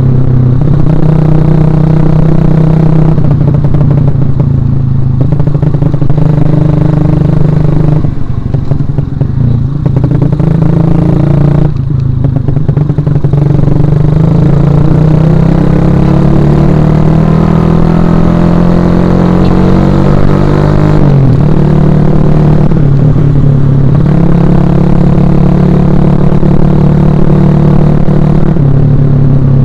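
Suzuki Shogun Axelo R motorcycle's 125 cc single-cylinder four-stroke engine running while being ridden. The revs ease off twice early on, then rise steadily through the middle and fall sharply about two-thirds in before settling at a steady cruise.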